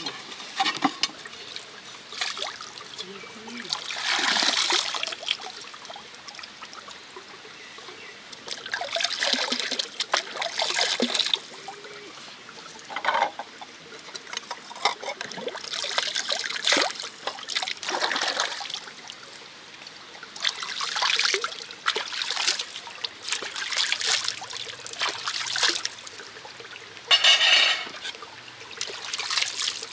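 Water pouring and trickling in short, irregular bursts a few seconds apart, with a few light clicks and knocks between them.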